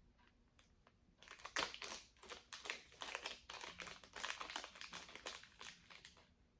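Hands rummaging through a pile of costume jewelry, a dense run of small clicks and rustles starting about a second in and stopping near the end.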